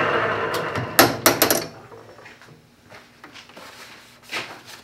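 Metal lathe running down after being switched off, then a quick run of four or five sharp metallic clanks about a second in as the three-jaw chuck is handled, with one more knock near the end.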